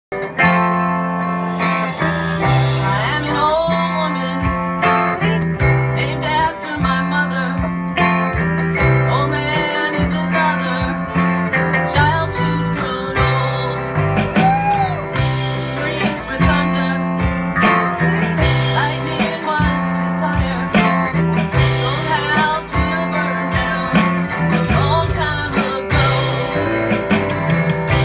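A band playing a blues-rock song: guitar over a bass line that steps back and forth between two low notes.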